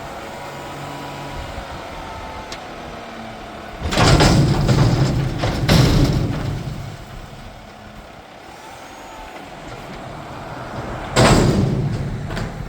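Mack McNeilus front-loader garbage truck with loud bursts of air from its air brakes: two about four and six seconds in, and another near the end, each fading over a second, over the truck's steady running.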